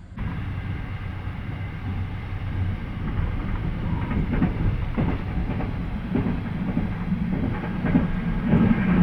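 Train running on the rails: a steady low rumble with irregular clicks and knocks from the wheels over the track, growing a little louder.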